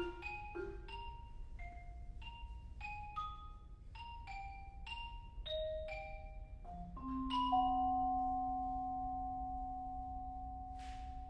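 Xylophone and vibraphone playing a sparse line of single struck notes, about two a second and growing softer, then a final chord about seven seconds in that rings on steadily and slowly fades.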